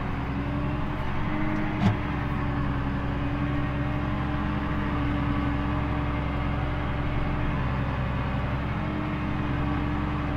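McCormick G135 Max tractor's diesel engine running steadily under load while ploughing, heard from inside the cab. A single sharp knock sounds about two seconds in.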